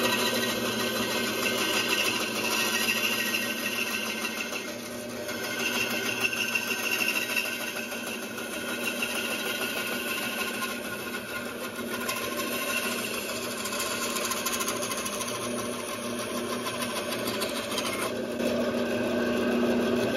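Bandsaw running steadily, its blade sawing through the laminated hardwood riser block of an Ipe bow to shape the riser fade; the sound of the cut shifts as the piece is fed, and the offcut comes free near the end.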